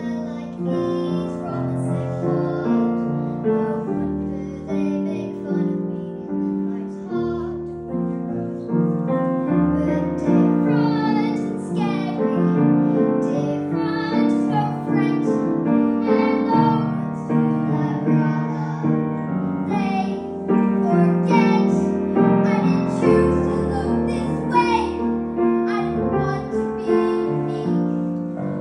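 A young girl singing with vibrato, accompanied on a grand piano.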